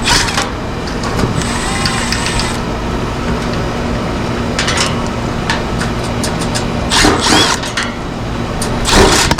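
A cordless power driver whirring briefly about a second in, over a steady mechanical hum, then metal knocks and clatters near the end as the old condenser fan motor is worked free and pulled out.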